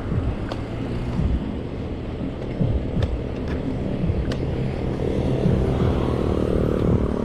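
Wind buffeting and road rumble on a GoPro riding along on a mountain bike, with a few sharp ticks of the bike rattling over the road. A faint hum joins about five seconds in.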